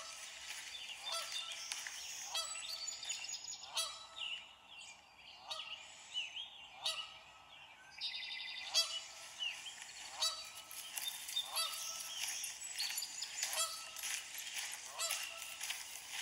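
Canada geese honking repeatedly, about one call a second.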